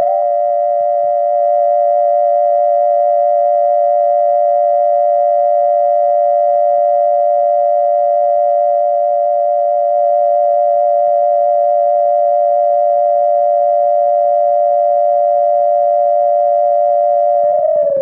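Casio electronic keyboard playing a siren sound: a loud two-tone electronic wail held at one steady high pitch, which begins to glide down near the end.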